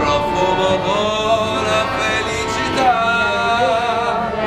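Gondolier's song: a singer holding long notes, sliding up in pitch about a second in and down again near three seconds.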